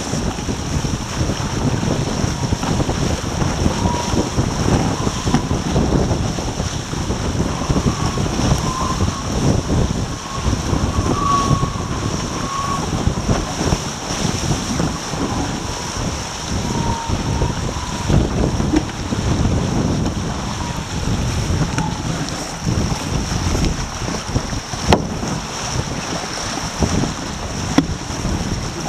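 Wind buffeting the microphone and water rushing and splashing along the hull of a Taipan sailing catamaran moving at about 10 to 13 knots. A faint wavering whistle comes and goes through the middle, and there are a couple of short knocks near the end.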